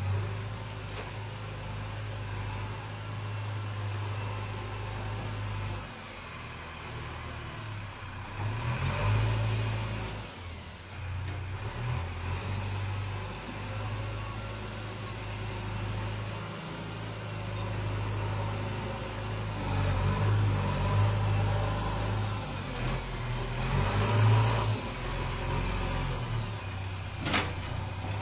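Diesel engine of a JCB backhoe loader running steadily while it digs, the engine note swelling and easing several times as it works.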